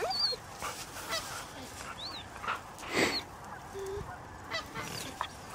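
A flock of geese calling in the distance: many short, overlapping honks bending up and down in pitch, with one louder sound about three seconds in.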